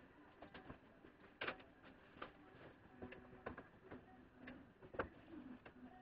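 Faint, scattered clicks and light knocks of hands and tools working on the 1982 Honda GL1100 Goldwing's carburetor bank during its removal. The two loudest knocks come about a second and a half in and near five seconds.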